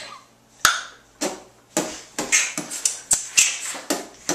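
A person making a quick, irregular string of mouth sounds: sharp tongue clicks and short breathy hisses, like beatboxing.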